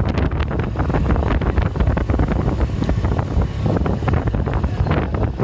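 Wind buffeting the microphone in crackling gusts over a steady low rumble.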